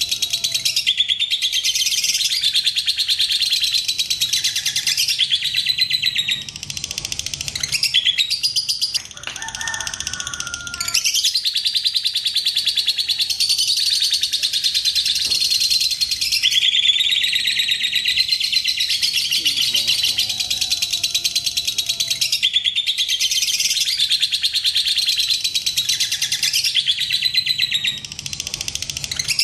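Lovebird 'ngekek': a long, very rapid, shrill chattering trill held for several seconds at a time. It breaks off briefly about nine seconds in and again near the end.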